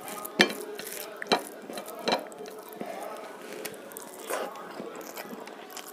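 Fingers mixing rice with dahi potol (pointed gourd in yogurt gravy) on a plate by hand, with three sharp clicks against the plate in the first two seconds, then a softer sound of a mouthful being eaten about four seconds in.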